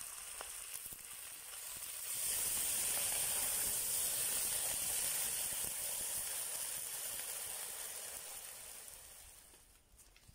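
Chicken pieces sizzling in a hot cast-iron kazan. About two seconds in, water is poured in and it hisses sharply louder as it hits the hot metal and turns to steam. The hiss dies away over the last few seconds as the water stops boiling off.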